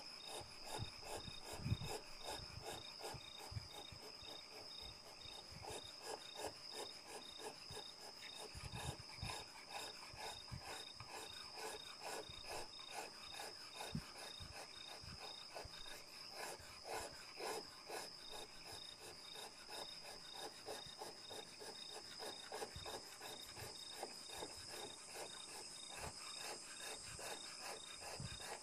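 A hand-held carving blade cutting into the wood of a guqin body in quick, repeated short strokes, with crickets chirring steadily behind.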